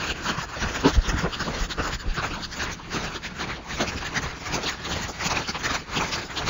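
Plastic rattle shaken continuously, a dense clatter of small clicks and scrapes, altered by a voice changer.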